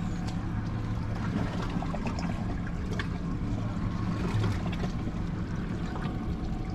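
A small boat's engine idling with a steady low hum, with water lapping around the hull.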